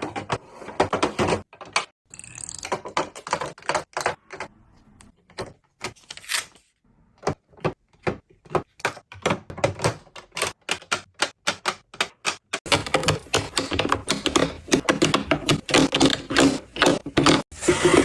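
Miniature food and grocery items clicking and tapping as they are handled and set down one by one. About two-thirds of the way in, the taps run together into a dense, continuous clatter.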